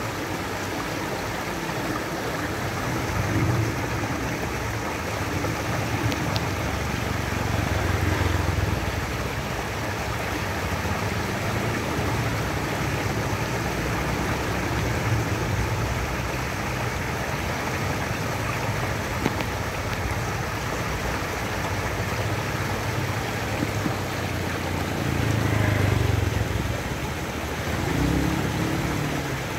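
Shallow stream water pouring over a small weir and rushing across rocks, a steady splashing rush, with a low rumble that swells a few times.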